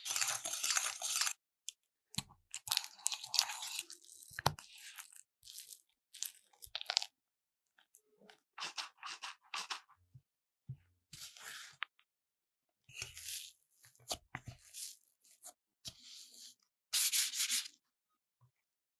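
Silicone spatula scraping and stirring softened butter and powdered sugar in a glass bowl, then folding flour into the batter. The sound is a series of short, crunchy scraping and rubbing strokes with brief silent gaps between them.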